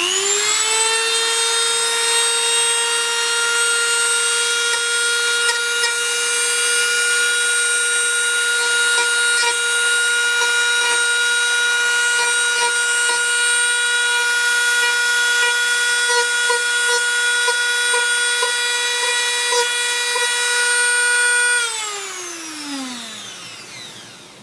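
Dremel 200-series rotary tool with a sanding drum, sanding into a plastic box. It spins up quickly to a steady high whine with a grinding hiss, then is switched off near the end and winds down with a falling whine.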